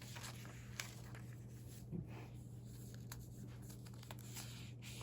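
Faint rustling and light clicks of newsprint clippings being handled in a recipe binder, over a steady low hum.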